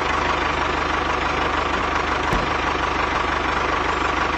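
Tractor engine idling steadily with an even low chug.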